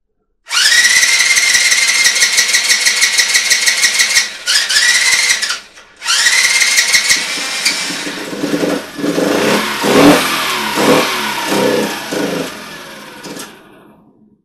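Honda QA50 mini bike's small four-stroke single cranked on its electric starter, a fast even chugging with a starter whine, in three tries. On the third it catches, revs up and down a few times, then fades and dies, running only on the fuel poured into the carburetor bowl with no tank fitted.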